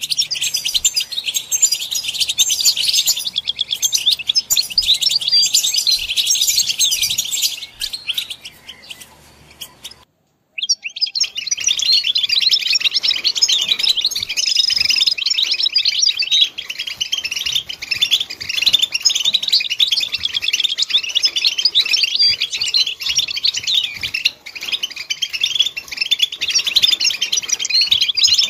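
European goldfinch song: a fast, continuous jumble of high twitters and trills. It cuts off abruptly for about half a second roughly a third of the way in, then carries on.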